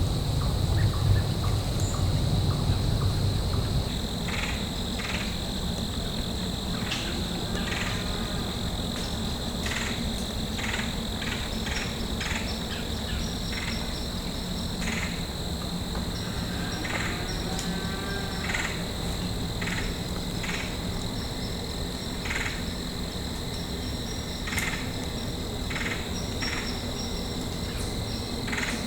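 Evening insect chorus of crickets: a steady high-pitched trill with many short chirps scattered through it. A low rumble sits under it for the first few seconds.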